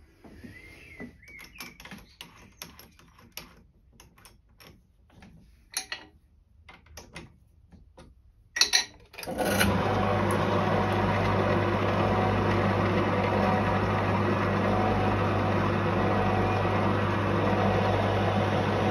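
Light clicks and knocks of the drill and vise being handled, a sharp clatter about eight and a half seconds in, then a bench pillar drill starts and runs with a steady hum while drilling tapping-size holes in a small phosphor bronze bearing held in a drill vise. The running drill cuts off abruptly at the very end.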